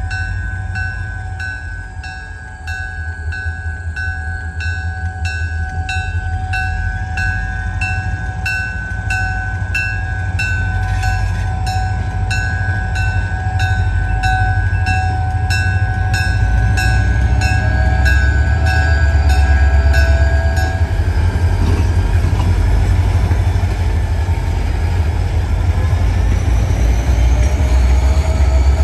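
Diesel freight locomotives rumbling as they approach slowly, their engine sound building as they near. A bell rings in a steady, even rhythm until about two-thirds of the way through, and a few faint gliding squeals follow.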